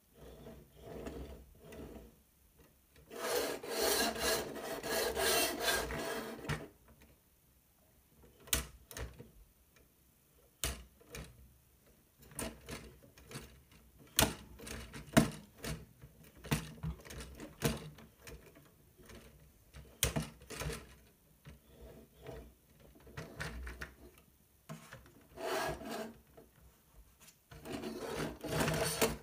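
LEGO Technic buggy pushed by hand across a tabletop, its plastic wheels and parts rolling and rubbing in two stretches of a few seconds, near the start and near the end. In between come scattered sharp clicks and knocks of plastic bricks.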